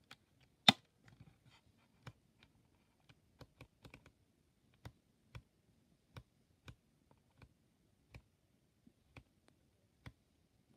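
Faint clicks from a Cosina CSR 35mm SLR film camera being handled and its controls worked while its exposure meter reads: one sharper click about a second in, then a scatter of faint, irregular clicks.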